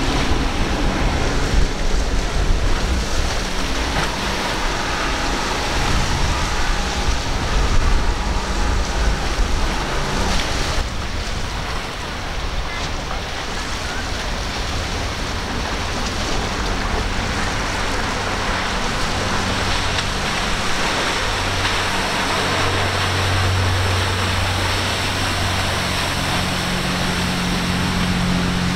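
Boats running fast through rough water. First, triple Mercury outboards on a cruiser, with wind buffeting the microphone and hissing spray and wake. Then a Spencer sportfishing boat's engines give a steady low drone that grows louder near the end, over rushing water.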